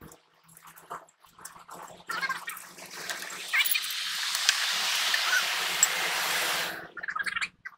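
Compressed air hissing steadily from a blow gun for about four seconds, then cutting off suddenly. Light metal clinks of tools at the wheel hub come before it.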